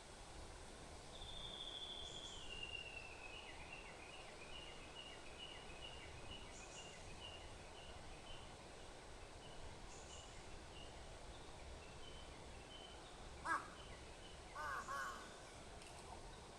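Birdsong over a quiet background: a songbird gives a high trill that steps down in pitch, then a long run of short repeated chirps. Near the end a crow caws, one sharp call and then two harsh caws close together.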